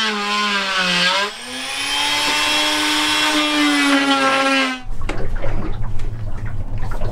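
A power tool's high whine, working on the fibreglass encapsulation around the chainplates. Its pitch sags about a second in, then rises and holds steady until it stops abruptly near five seconds. A lower, rough hum carries on after it.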